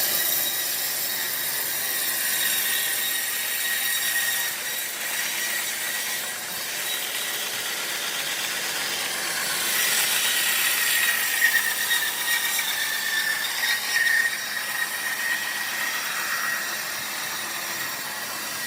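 Band sawmill blade cutting through a large log: a steady high hiss, with a whining tone that comes in about halfway through and fades out a few seconds later.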